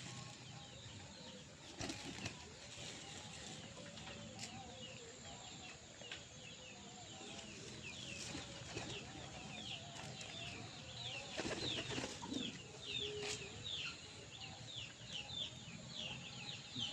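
A flock of domestic pigeons feeding on scattered grain, with wing flutters and scattered sharp pecks and taps. From about seven seconds in, quick short high chirps repeat a few times a second.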